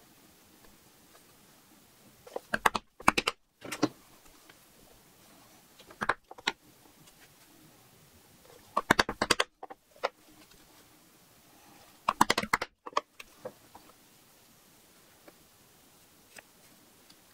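A small metal hand tool scraping along the edge of a piece of leather in short strokes, heard as four quick bursts of rapid scratchy clicks.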